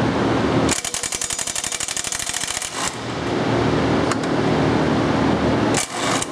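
Electric hammer torque wrench rattling out rapid, evenly spaced hammer blows for about two seconds, then a short second burst near the end, as it breaks loose stuck flywheel bolts. A steady low engine hum runs underneath.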